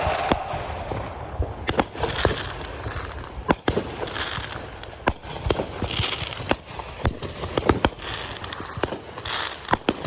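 Fireworks going off: a string of sharp bangs and pops at irregular intervals, with short spells of crackling between them.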